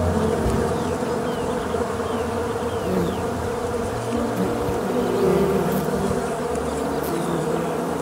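A swarm of bees buzzing: a dense, steady hum of many wingbeats whose pitches overlap and shift.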